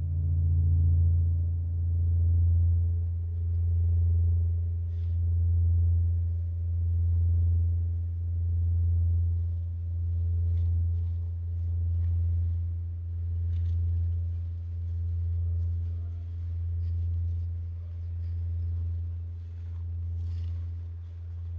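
A deep sustained drone, one low tone that swells and dips regularly about every one and a half seconds and slowly fades, with faint scattered ticks in the second half.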